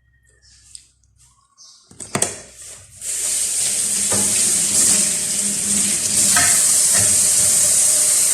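A few knocks about two seconds in, then from about three seconds a loud, steady, hissing stream of running water.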